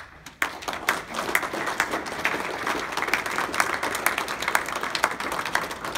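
Audience applauding: a sharp knock right at the start, then many hands clapping, building within about half a second into steady, dense applause.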